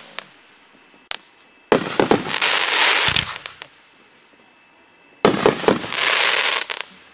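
1.3G display aerial fireworks bursting twice, about three and a half seconds apart. Each burst is a sharp bang followed by about a second and a half of dense crackling.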